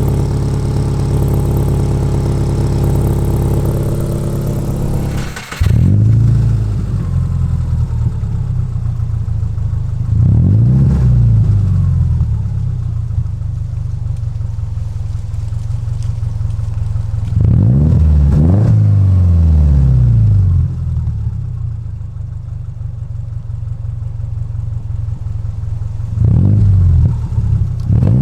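Naturally aspirated Subaru Forester flat-four engine running through a fitted GC8 Impreza WRX cat-back exhaust that has a leak at a joint. It idles steadily, then after a sudden break about five seconds in it revs up and drops back three times.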